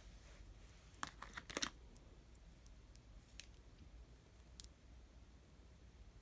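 Faint clicks and taps from handling a small glass perfume sample vial with a plastic cap: a quick run of clicks about a second in, then a few single clicks spaced out.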